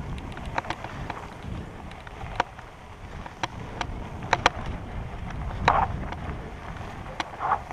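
Mountain bike riding over a rough grassy singletrack, heard from a helmet camera: a steady rumble of wind on the microphone with irregular sharp clicks and rattles as the bike jolts over bumps.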